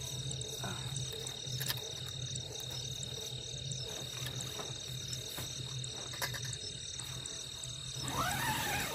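Night insects chirping and trilling steadily, with frogs croaking in a low pulsing rhythm underneath. A few faint clicks, and a short rising-then-falling call near the end.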